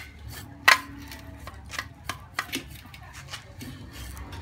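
A knife blade scraping scales off a water snake against a stainless steel tray: repeated short, sharp scrapes and clicks of the blade on the snake and the metal, about three a second. The loudest stroke comes a little under a second in.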